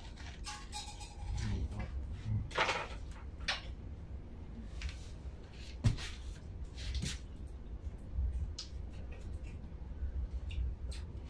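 Scattered light clicks, knocks and scrapes from fruit being handled and cut, a knife working on a mango over a plate, over a low steady hum. There is a longer scrape about two and a half seconds in and a sharper knock near the middle.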